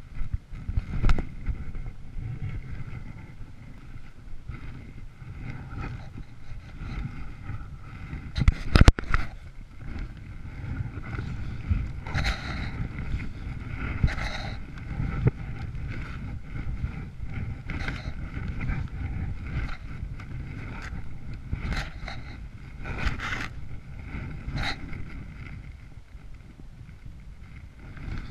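Climbing noise on a body-worn camera: wind and rubbing on the microphone as a steady rumble, broken by scuffs, crunches and knocks of boots and gloves on snow and a wooden ladder. The loudest is a quick run of knocks about nine seconds in.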